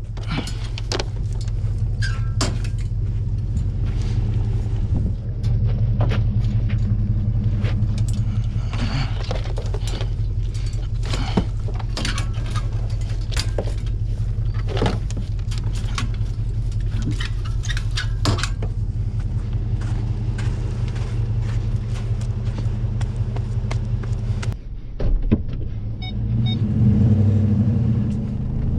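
Pickup truck engine idling steadily while hounds are loaded into a metal dog box on the truck bed, with repeated clanks, clicks and rattles of the box's doors and latches. Near the end there is a thump, then the engine grows louder as the truck moves off.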